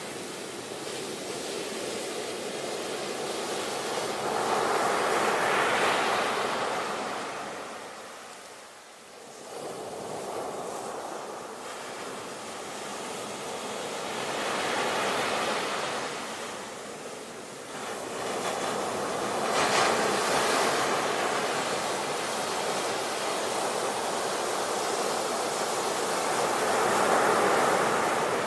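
Sea waves breaking on a shore, the surf swelling and ebbing every several seconds, with a sharper crash about twenty seconds in.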